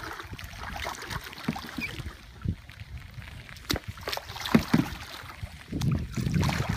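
Kayak paddling through shallow floodwater: the paddle dips and splashes, with scattered sharp knocks from the plastic hull and paddle.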